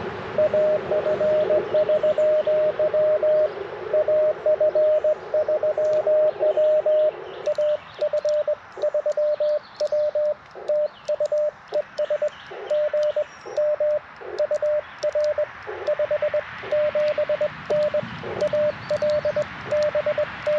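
Morse code (CW) from an Icom IC-705 transceiver: a steady, fairly high tone keyed into quick dits and dahs over receiver hiss. For the first several seconds a fainter, lower-pitched Morse signal sounds alongside it.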